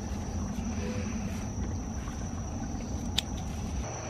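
Outdoor ambience of insects: a steady high-pitched insect drone over a low rumble, with one sharp click about three seconds in.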